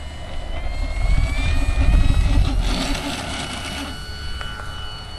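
Radio-controlled model airplane's motor at take-off power: a whine that rises in pitch over the first couple of seconds as the plane rolls and lifts off, then holds steady as it climbs, under a low rumble that peaks about two seconds in.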